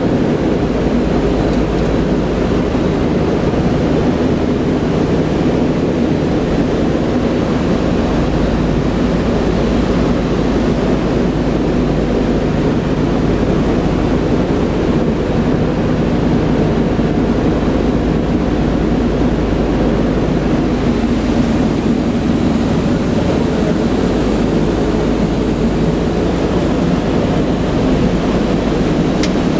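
The four Wright R-1820 Cyclone radial engines of a Boeing B-17 Flying Fortress running steadily in flight, heard from inside the cockpit as a constant deep drone mixed with the rush of air.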